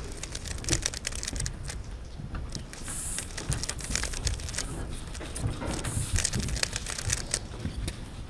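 Paper rustling and a pencil scratching on a scoresheet, with scattered light clicks and taps.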